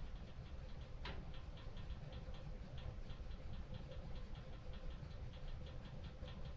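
Wood fire in a stone fireplace crackling: a dense run of small, quick ticks with one sharper pop about a second in, over a low steady rumble.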